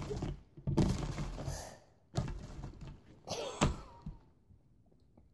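Hands squishing and pulling homemade slime, bursts of wet squelching noise, with a sharp smack about three and a half seconds in.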